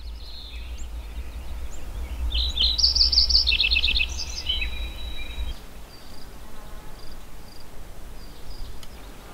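Songbirds singing, with a quick trill of repeated high notes about three seconds in, over a low steady rumble that drops away after about five and a half seconds. Fainter short chirps follow.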